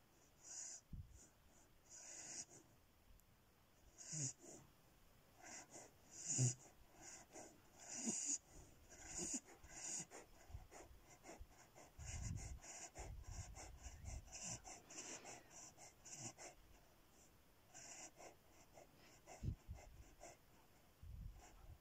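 Beagle puppy breathing in its sleep while dreaming: quick, irregular wheezy puffs and sniffs through the nose, with now and then a short low-pitched sound from the throat.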